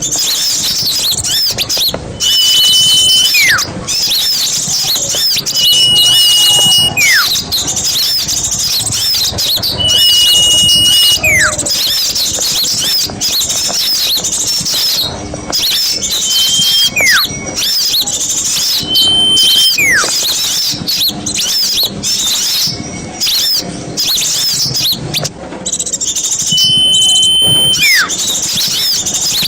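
Bird-lure recording of many small songbirds chattering densely and excitedly. A loud whistle repeats every three to four seconds: a held high note, then a quick falling glide.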